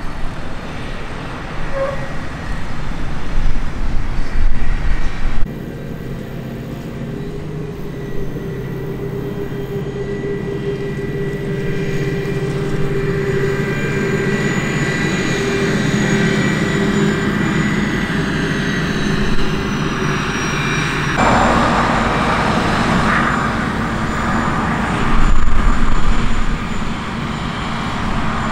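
Steady engine and vehicle noise with a few held whining tones. The sound changes abruptly about five seconds in, and again about two-thirds of the way through.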